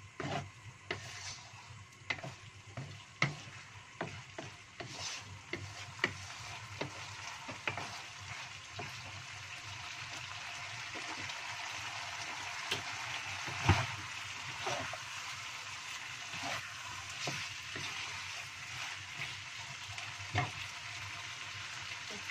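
Wooden spatula knocking and scraping in a nonstick wok as chicken in a thick spice sauce sizzles. The sauce is nearly cooked down. The knocks come irregularly and thickest in the first half. The sizzle grows stronger about halfway through.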